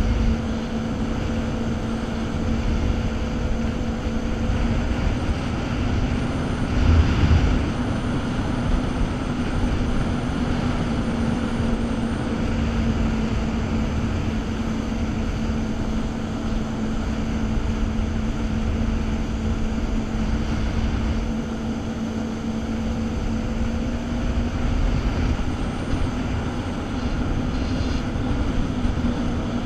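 Jet ski engine running steadily at cruising speed, a constant drone over a rushing haze of water and wind noise, with a brief louder swell about seven seconds in.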